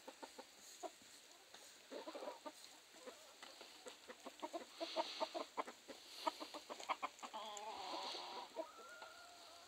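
Bantam chickens clucking softly in short notes, with a longer wavering call near the end.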